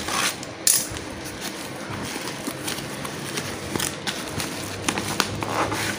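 A cardboard parcel being opened by hand: a box cutter scraping through packing tape, cardboard flaps rustling, and a plastic-wrapped package pulled out, crinkling. The sound is an uneven rustle with scattered crackles and sharper clicks.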